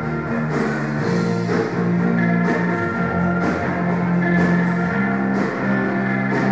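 Rock band playing live on electric guitars, bass and drum kit: steady, sustained chords that change every second or two, with a drum and cymbal hit about once a second.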